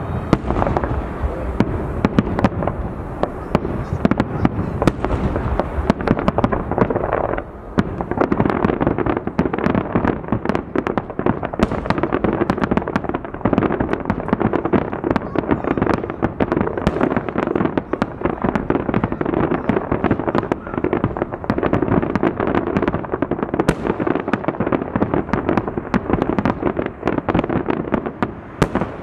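Firework shells bursting in a dense, continuous barrage of bangs and crackles, from aerial bursts and rapid-fire low shots together, with a short lull about seven seconds in.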